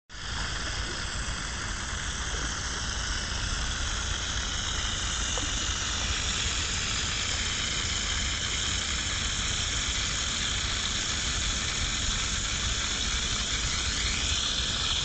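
Steady hiss of flowing river water, with a low rumble underneath.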